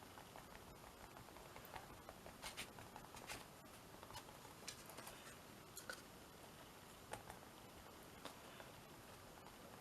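Near silence with faint, irregular small taps and brushing sounds of a paintbrush dabbing and blending white ink on a canvas.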